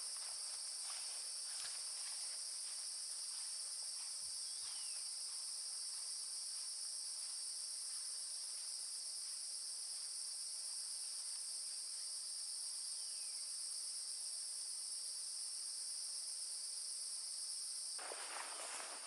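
Steady high-pitched chorus of insects, a continuous shrill buzz in two high pitch bands that never lets up. A faint rustling, like footsteps on leaf litter, comes in about a second before the end.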